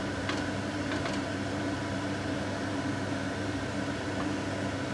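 Steady background hum and hiss, with a few light clicks in the first second or so from a spoon against a frying pan as instant noodles are broken apart in boiling water.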